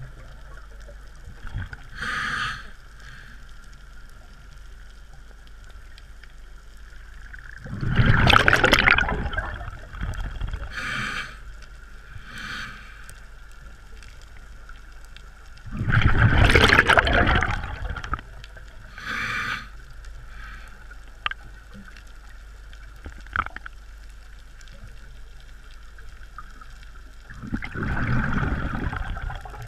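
Scuba regulator exhalation: three long bubbling bursts of exhaled air about eight to ten seconds apart, with shorter, quieter hisses between them and a steady faint hum underneath.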